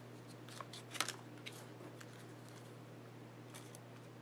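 A few faint clicks and taps of small grooming-product containers being set down and arranged in a cardboard box, over a steady low hum.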